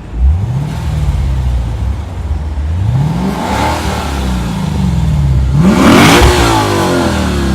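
2015 Lexus RC F's 5.0-litre V8 being revved in neutral: a quick rise at the start, then two blips, about three and a half and six seconds in, each falling back to idle. It runs with new fuel pumps and updated engine software, with no buzzing rattle.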